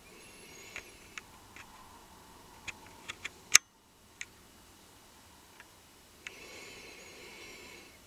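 About ten sharp clicks and taps, spaced irregularly, the loudest just past the middle, over a faint high hiss.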